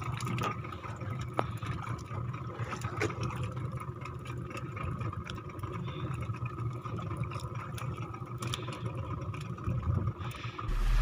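Fishing boat's engine running steadily, with a few light knocks and clatters.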